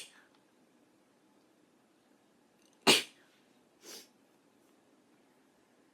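A young woman sneezing once, a sharp, loud burst about three seconds in, followed about a second later by a softer breathy burst.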